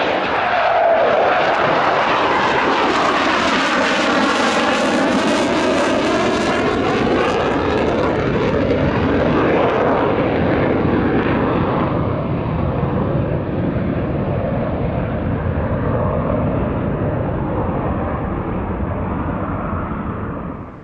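A Panavia Tornado's twin RB199 afterburning turbofans: loud jet noise as the jet makes a low pass with gear down, then pulls away on afterburner. The sound sweeps in pitch as it passes a few seconds in, then fades slowly as it recedes, and cuts off suddenly near the end.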